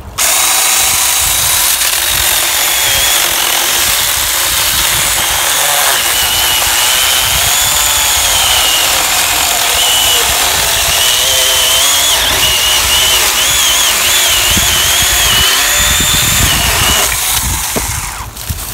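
O-CONN 24V cordless mini chainsaw with a 4-inch bar running under load while cutting through an old pine log just over 4 inches thick. The electric motor and chain start suddenly and run steadily, with a high whine that wavers in pitch as the chain works through the wood, then stop near the end.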